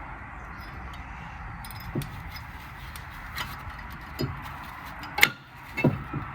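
A handful of short metallic clicks and taps from a new brake pad being fitted into a car's front brake caliper piston, spaced a second or so apart, with the sharpest click about five seconds in, over a faint steady hiss.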